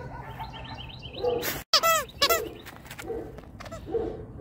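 A dog's squeaky toy squeaking twice, about two seconds in, each squeak bending up and back down in pitch. Birds chirp faintly in the background.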